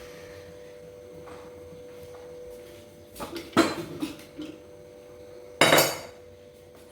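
Dishes and utensils clattering as they are handled and set down: a run of clinks and knocks about three seconds in, and one loud clatter near the end.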